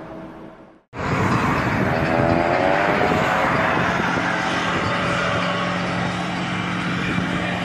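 A quiet steady hum breaks off into a moment of silence about a second in. Then loud, rough car and road noise follows, with an engine note gliding in pitch a couple of seconds later and a steady low drone after that.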